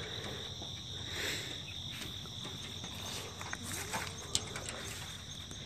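Steady high-pitched insect chorus, crickets trilling, with a fainter evenly pulsing chirp above it. Scattered soft clicks and taps run through it.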